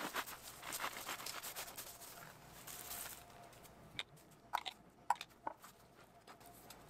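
A knife sawing through the crisp crust of a freshly baked bolillo roll, a dense crackling crunch lasting about three seconds. A few separate light clicks follow.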